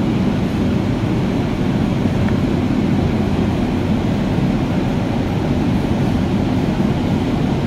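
A steady, loud, low background rumble, an even noise with no rhythm or pitch, like a fan or distant machinery running.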